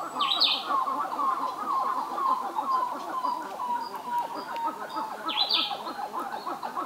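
A chorus of birds calling, a dense run of quick repeated chirps, with two brief higher calls: one just after the start and one about five and a half seconds in.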